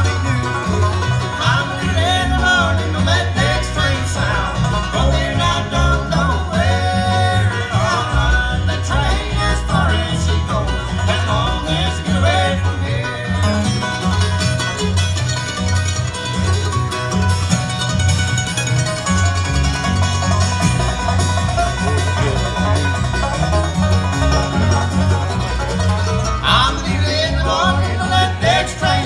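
Bluegrass band playing live: banjo, acoustic guitar and upright bass over a steady beat, with singing.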